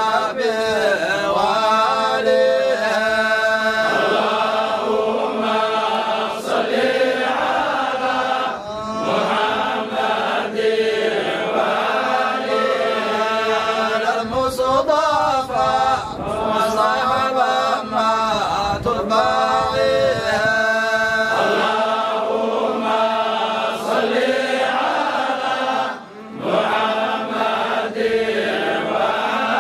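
Men's voices chanting Arabic devotional verses together, a religious chant in praise, with a brief breath pause near the end.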